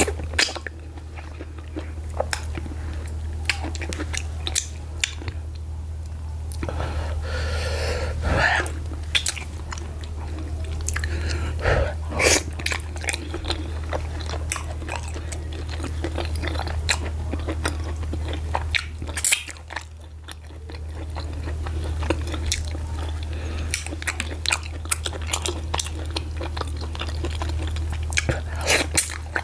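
Close-miked wet chewing, biting and lip-smacking of a person eating slimy ogbono soup with garri fufu and meat by hand, with many quick mouth clicks. A steady low hum runs underneath.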